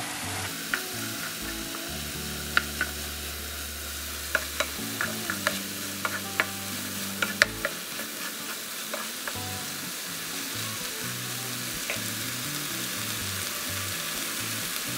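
Minced meat and chopped bell peppers sizzling in a frying pan while being stirred with a wooden spatula. The spatula clicks and scrapes against the pan a dozen or so times over the first half.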